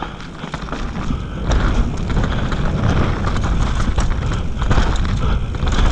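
Mountain bike riding fast down a dry dirt trail: tyres rolling over dirt and leaves and the bike rattling and knocking over bumps, under heavy wind rumble on the microphone. It gets louder about a second and a half in as the bike picks up speed.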